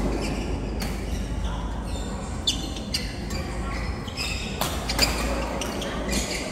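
A rally in an indoor doubles match: a string of sharp hits about every second, echoing in a large hall, with short high squeaks between them.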